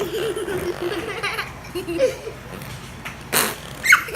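Children giggling and laughing in bursts, with a short hissy burst about three and a half seconds in.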